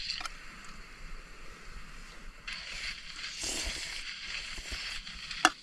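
Noodles being slurped and eaten from a metal pot, with a hissing slurp about two and a half seconds in and a sharp clink of a utensil on the pot near the end.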